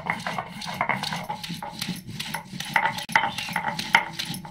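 Stone roller (batta) rocking and scraping on a stone grinding slab (sil-batta) as garlic, green chilies and spices are wet-ground into masala: a quick, steady run of gritty stone-on-stone strokes.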